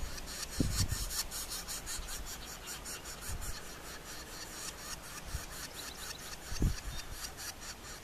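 Northern Flicker nestlings begging inside the nest cavity: a fast, rhythmic raspy buzzing, strongest in the first couple of seconds, while an adult feeds them. A few dull low thumps come through now and then.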